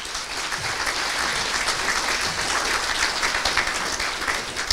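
Audience applauding: many hands clapping, swelling over the first second and then steady.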